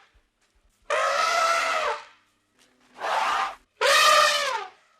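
Elephant trumpeting: three loud, brassy calls in a row, the first and last about a second long and the middle one shorter, each dropping in pitch as it ends.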